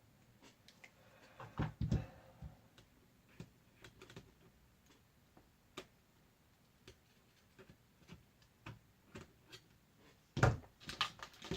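Scattered light clicks and taps of small screws, a screwdriver and plastic laptop parts being handled during disassembly, with a few louder knocks about two seconds in and again near the end.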